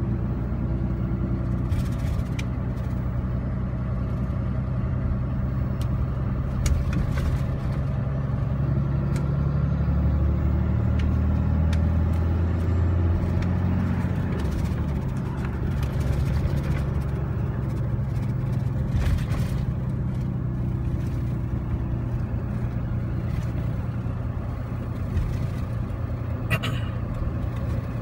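The 6.7-litre Cummins turbo-diesel inline-six of a 2015 Ram 3500, heard from inside the cab while driving. Its drone grows louder as the truck accelerates to about 2,000 rpm near the middle, then settles back to about 1,100 rpm toward the end.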